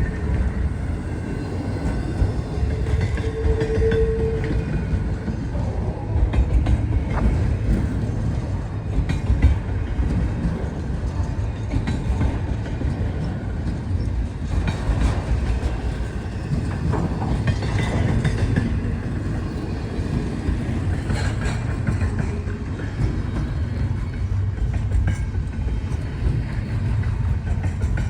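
Freight cars rolling past on the rails, a continuous low rumble with wheels clicking and clacking over the track. There is a brief steady high note about three seconds in.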